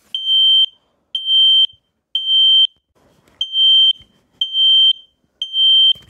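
Kidde KN-COSM-BA smoke alarm sounding in its fire alarm mode, the temporal-three pattern. It gives two sets of three loud, high, piercing beeps, each about half a second long and a second apart, with a longer pause between the sets.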